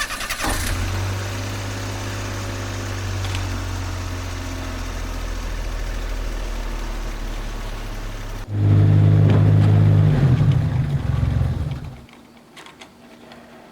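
An engine running steadily. About eight and a half seconds in it cuts to a louder, rougher engine sound, which drops away near the end.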